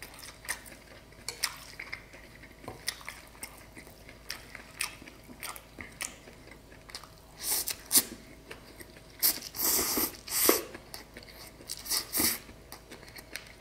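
Close-up chewing and slurping of rice vermicelli noodles, with many small wet clicks of the mouth. There are a few louder slurps in the second half, the longest about a second.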